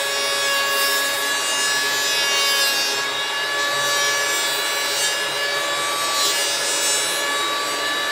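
Woodworking power tool running continuously while cutting or machining wood for kitchen furniture: a loud, steady, high whine over a rasping hiss.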